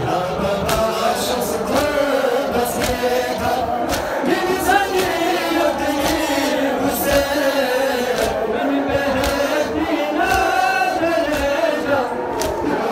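A crowd of men chanting a mourning lament (noha) together in unison, with sharp slaps at intervals that are typical of chest-beating (matam).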